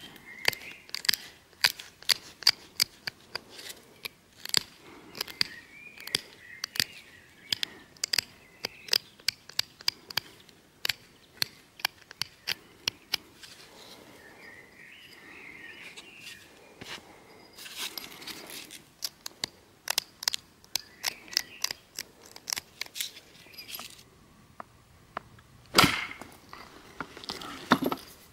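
Flint being worked with knapping tools: runs of sharp, short stone clicks, about two a second, then a louder single strike near the end. A bird chirps now and then.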